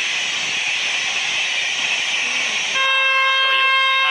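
Steady rushing noise of a passing passenger train, then near the end a locomotive horn starts one long steady blast.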